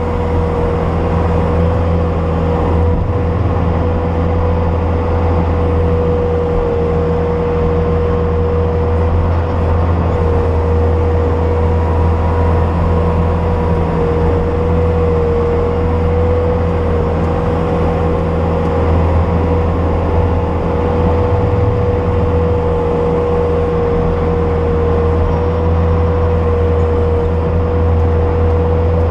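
Bobcat S250 skid steer's diesel engine running steadily, with a constant whine riding over the low engine drone.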